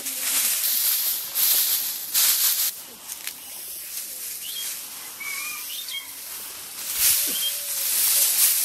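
Bundles of dry crop stalks rustling as they are dragged and spread on the ground, in several bursts. A few short bird chirps come through in the quieter middle stretch.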